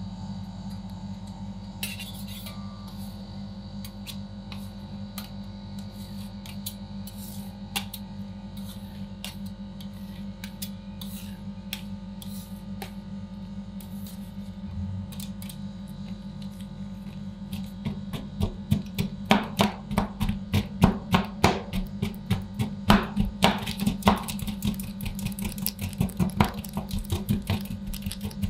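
Metal spatulas tapping, then rapidly chopping and scraping on a freezing steel ice cream roll plate, over the steady hum of the plate's cooling unit. A few scattered taps at first, then fast repeated chopping strikes from about two-thirds of the way in.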